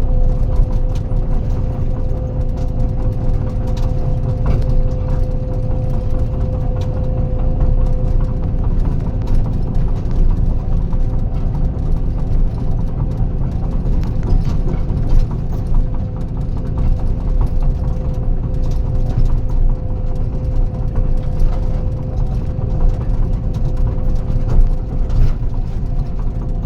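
Tracked heavy machine (excavator or bulldozer) travelling: a steady diesel engine drone with a constant hum, and the tracks clattering in irregular clicks.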